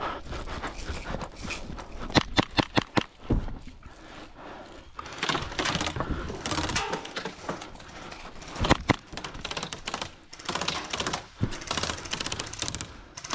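Airsoft replicas firing: sharp clicks and snaps, some in quick strings of several shots, over rustling movement.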